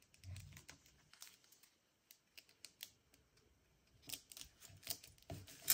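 Faint paper handling: scattered light taps and rustles as a paper-bag piece is glued and pressed down onto a journal page. The taps grow busier and louder in the last second or two.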